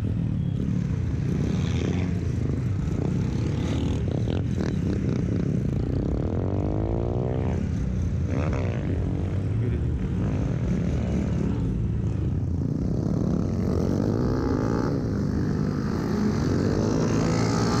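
Motorcycle engine running steadily while being ridden, with a little more throttle and a louder sound near the end.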